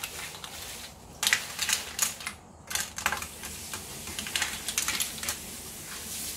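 Clam shells clattering against each other and the frying pan as they are stirred with a white spatula, in quick irregular clicks with a short pause about two and a half seconds in, over a steady hiss from the pan. The clams are being cooked in sauce until their shells open.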